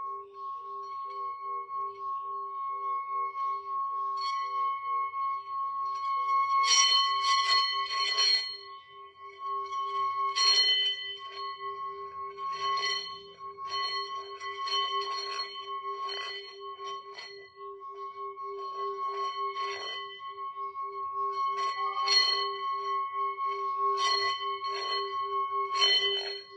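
Singing bowls sounding: a low, wavering hum and a higher steady ring, with clusters of bright bell-like metallic strikes every two seconds or so.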